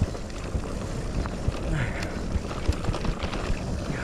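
Electric mountain bike riding over a rough, rutted dirt trail: a steady rumble of tyres on dirt with frequent irregular knocks and rattles from the bike over the bumps, and wind on the microphone.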